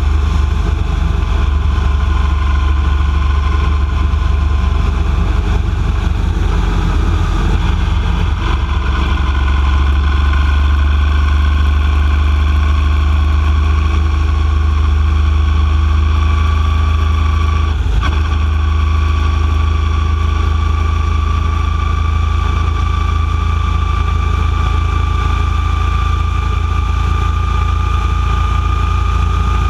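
Steady engine and road noise of a vehicle cruising along a highway: a strong low rumble with a whine that slowly rises in pitch. A single brief click comes about 18 seconds in.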